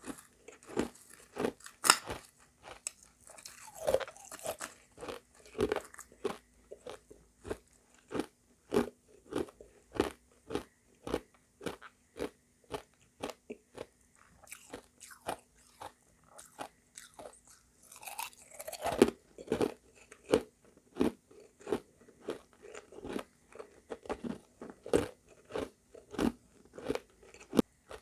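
Close-up chewing of refrozen shaved ice mixed with crushed ice: a hard crunch with every bite, about two to three a second, with a few heavier bites now and then.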